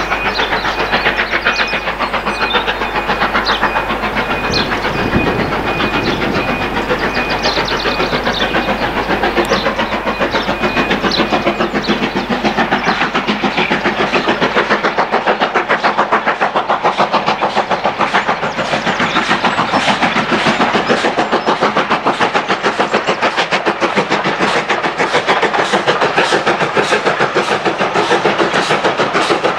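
Steam locomotive hauling a passenger train past, its exhaust chuffing in a fast, even rhythm. The beats grow sharper and more distinct about halfway through as the engine comes closer.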